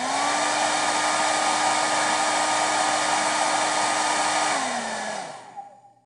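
Handheld hair dryer blowing steadily. Its motor hum rises as it spins up at the start, then drops as it winds down about five seconds in, and it fades out.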